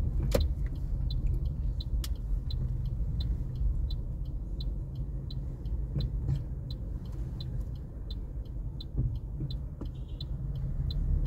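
Steady low rumble of a car driving, heard from inside the cabin, with a turn-signal indicator ticking about three times a second that stops near the end.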